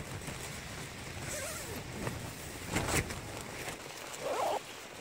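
Strong wind buffeting a backpacking tent, the nylon walls rushing and flapping, with a sharp snap about three seconds in.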